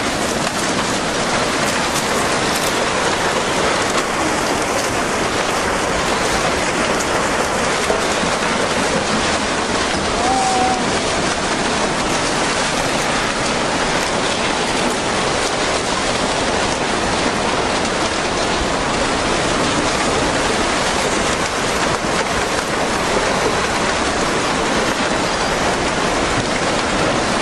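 Steady, dense rushing noise of water, like heavy rain, with no breaks or rhythm.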